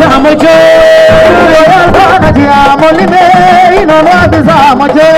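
A woman singing a cappella into a microphone, with long held notes that waver and ornamented turns between them.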